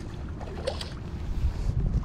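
Wind rumbling on the microphone, with light scratchy rustles of fly line being handled about halfway through.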